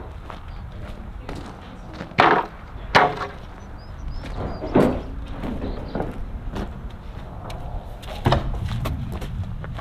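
Wooden boards and tools being knocked and set down: a few sharp wooden thuds about two, three, five and eight seconds in, with smaller knocks between, over a steady low rumble.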